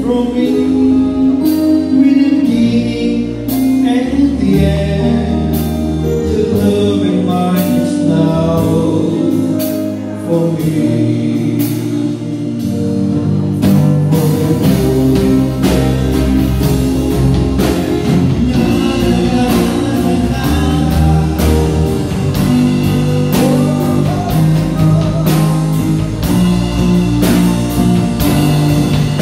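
Live band playing a song, electric guitars and a drum kit keeping a steady beat, with a man singing into a microphone over it.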